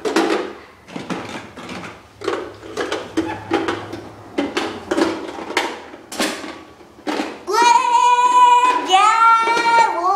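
A run of short, irregular rustles and knocks, then from about seven seconds in a child singing in a high, held, wavering voice.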